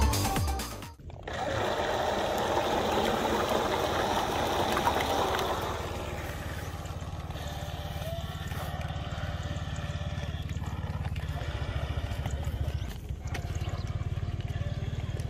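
Small motor of a homemade remote-control boat buzzing steadily as it drives the boat along the water. Over the first few seconds a rushing hiss of water or wind runs with it, after background music fades out about a second in.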